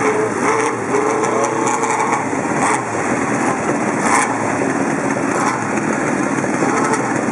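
Vintage motorcycle engines running at a start line, their pitch rising and falling as bikes pull away one after another, with a few short sharp cracks among them.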